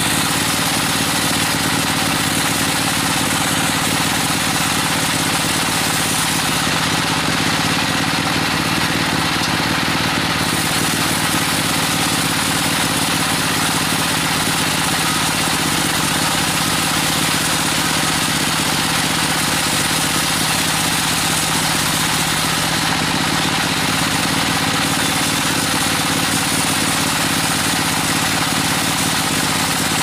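Band sawmill running steadily, a motor's even hum under the hiss of the blade, sawing a teak log into a slab.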